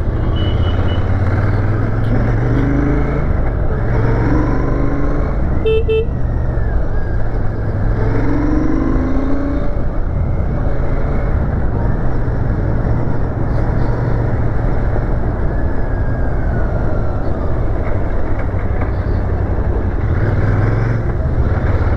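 Royal Enfield Shotgun 650's 648 cc parallel-twin engine running steadily at cruising speed on the move, mixed with wind and road noise. A vehicle horn beeps briefly about six seconds in.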